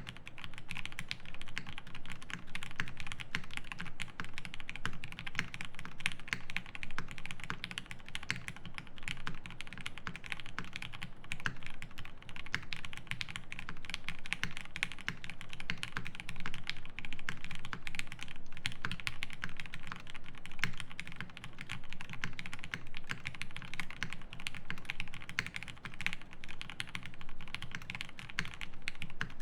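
Continuous fast typing on a Classy TKL mechanical keyboard with lubed Cherry Hyperglide MX Black linear switches, a polycarbonate plate, case foam and GMK ASCII keycaps: a dense, unbroken stream of keystrokes.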